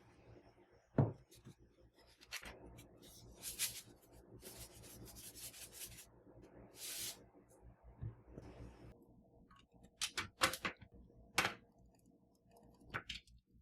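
Household handling noises: a single knock about a second in, stretches of rustling through the middle, then a quick run of light clicks and taps near the end.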